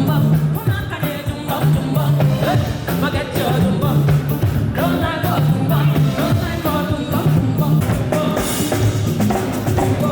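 Afrobeat-style pop song played through a venue's PA during a sound check: live band with drum kit, bass and keyboard, with a singing voice over it.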